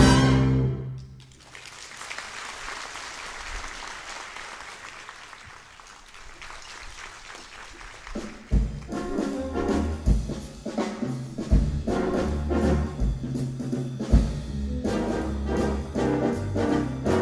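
Jazz big band playing live with trumpets, trombones and saxophones. A loud full-band hit cuts off about a second in, a much quieter passage follows, and the whole band with bass and brass comes back in at full strength at about eight and a half seconds.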